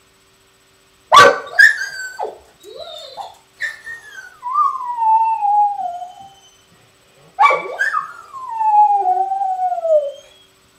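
Weimaraner barking and howling: a sharp bark about a second in, a short whine, then two long howls that each start with a bark and slide down in pitch. Distress calls of a dog with separation anxiety.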